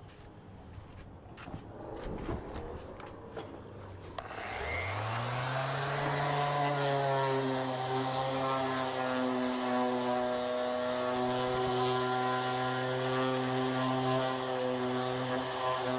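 A few clicks and knocks, then about four seconds in an electric motor starts, its hum rising in pitch for a second or two before settling into a steady run.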